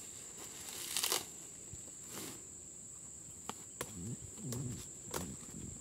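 Leaves rustling and stems snapping as leaves are torn off leafy shrubs by hand: a rustle about a second in and another near two seconds, then several sharp snaps in the second half. Under it runs a steady high-pitched insect drone.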